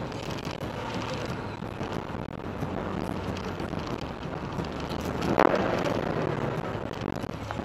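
A car driving on a rain-wet road, heard from inside the cabin: steady engine hum and tyre hiss on the wet tarmac, with a short swishing surge about five seconds in.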